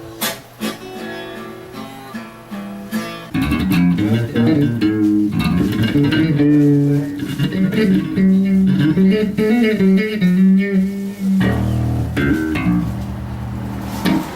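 Guitar playing: single plucked notes at first, then from about three seconds in a louder, fuller passage with deep bass notes underneath.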